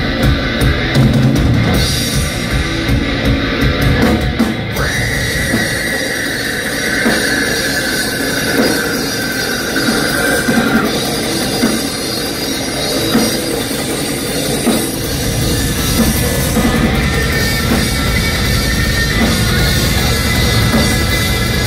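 Death metal band playing live: distorted electric guitars over a drum kit with cymbals, heard loud from the crowd. A long held high note sounds from about five to eleven seconds in, sinking slightly, and the low end grows heavier about fifteen seconds in.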